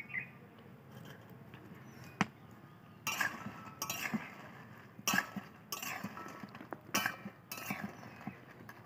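A metal spatula clinking and scraping against a steel karai as dried jujubes are stirred in it. There is one sharp clink about two seconds in, then irregular strokes from about three seconds in.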